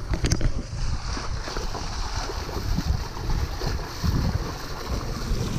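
Wind buffeting the microphone on a boat at sea: an uneven low rumble with a hiss of water and wind above it. There are two short clicks just after the start.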